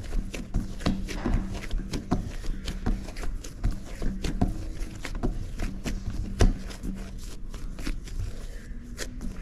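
Hands working pizza dough on a work surface, with irregular soft knocks and taps, several a second, over a low background hum.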